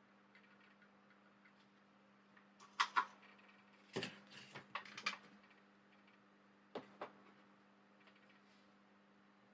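Light clicks and taps of small tools being handled during soldering rework: two about three seconds in, a quick cluster around four to five seconds, and two more near seven seconds, over a faint steady hum.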